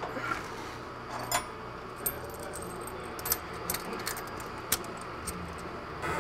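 Scattered light metallic clicks and clinks as gloved hands work an exhaust pipe and its fittings onto a snowmobile's turbocharger. The taps are irregular and come a few to the second.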